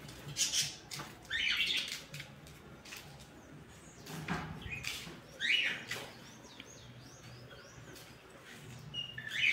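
Birds chirping in short bursts several times, with a few faint clicks in between.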